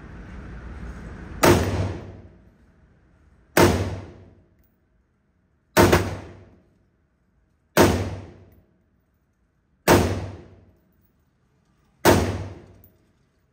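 Six rifle shots from an LWRC SPR 5.56 NATO rifle, evenly spaced about two seconds apart, each a sharp report with a short echoing tail in an indoor range.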